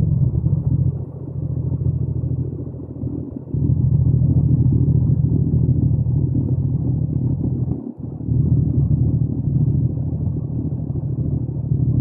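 Yamaha MT-07's parallel-twin engine and exhaust running under way, a steady low rumble. The sound drops briefly about three and a half seconds in and again, sharply, near eight seconds before picking back up.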